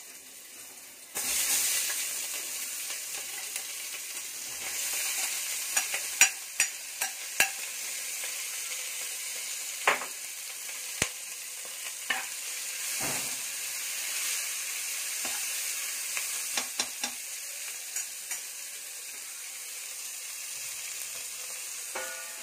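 Chopped onions tipped into hot oil and biryani masala in a pressure cooker start sizzling loudly about a second in, and keep sizzling as they are fried to brown. A spoon stirring them knocks against the pot now and then with sharp clicks.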